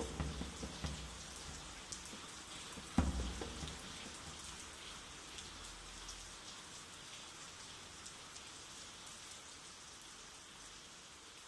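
Steady rain falling, with one low thud about three seconds in, the rain slowly fading.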